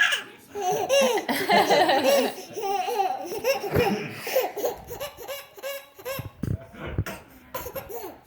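A baby laughing in a long run of short, high-pitched bursts that trail off near the end.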